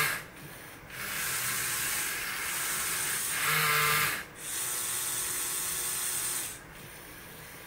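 LEGO SPIKE Prime motors and plastic Technic gears whirring as the brush-pen drawing machine runs. A louder, higher whine comes about three and a half seconds in, with short dips. The whir drops to a faint hiss about six and a half seconds in.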